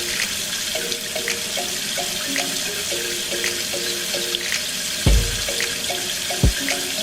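Steady running water, like a tap left running, under light background music with a repeating melody of short notes. Two low thumps, about five seconds in and again a second and a half later.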